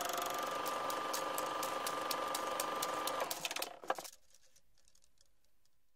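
Sound effect of a rapid mechanical film-projector-style rattle with a steady high whine and clicks about four times a second. It stops about three and a half seconds in with a final sharp click, leaving only faint hiss.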